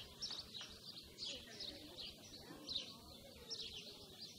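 Faint, high chirping: short falling chirps repeated every half second or so, often in pairs, like small birds chirping.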